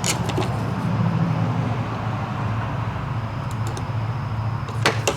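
A steady low hum runs throughout, with a few light clicks just at the start and a cluster close to the end as the fuel pump assembly's O-ring is worked into its housing by hand.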